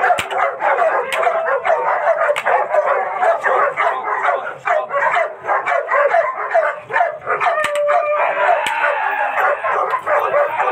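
A guard dog barking rapidly and almost without pause in aggressive protection training, worked up against a decoy. About seven and a half seconds in, one longer drawn-out note cuts through the barking.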